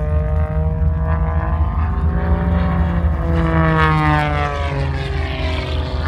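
Aerobatic biplane's piston engine and propeller droning overhead, the pitch rising about halfway through and then falling away as it climbs through a manoeuvre.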